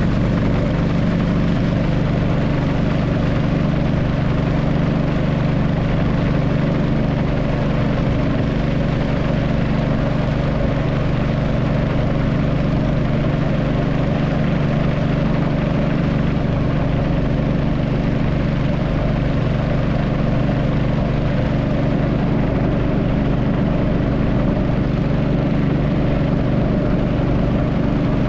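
Engine of a river motorboat running steadily at a constant speed, a low even hum with water and hull noise over it.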